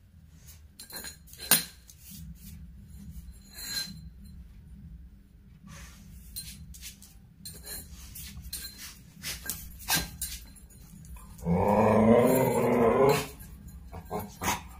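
Indian street dog tussling with a jute sack on a hard floor: scattered knocks and scuffles, then a loud playful growl of about a second and a half near the end.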